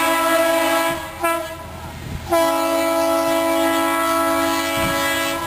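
Diesel locomotive horn blowing a steady multi-note chord as the train approaches. A long blast breaks off about a second in, a short toot follows, then a second long blast starts a little past two seconds and is held until near the end.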